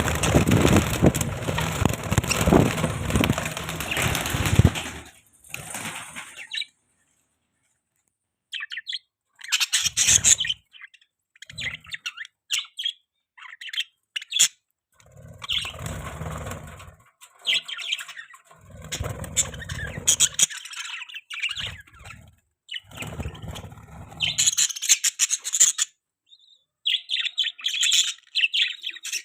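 Budgerigars chirping and chattering in short, broken bursts with pauses between them. A loud, dense rushing noise fills the first five seconds and then stops.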